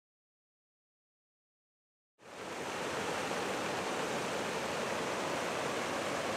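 Silence, then about two seconds in, the steady splashing rush of fountain jets falling into a pool fades in and holds evenly.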